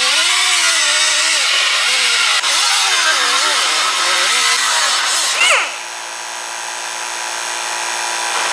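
Pneumatic cutoff wheel cutting sheet metal, its whine wavering and bending lower as the disc bogs under load. About five and a half seconds in it rises sharply in pitch as it comes free and then shuts off. A steady hum follows and slowly grows louder: the Vevor 2 HP oil-free air compressor running to refill its tank after the pressure drop from the long cut.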